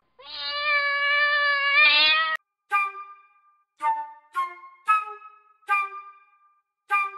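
A domestic cat meowing once: one long, drawn-out meow of about two seconds that bends upward at the end. It is followed by a string of short, quickly fading musical notes.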